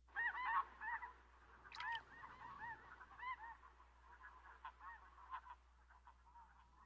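A flock of geese honking, with many short overlapping calls. They start suddenly, are loudest in the first couple of seconds, then thin out and grow fainter toward the end.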